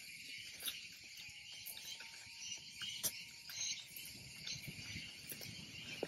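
Steady high-pitched chorus of insects, with a few faint clicks.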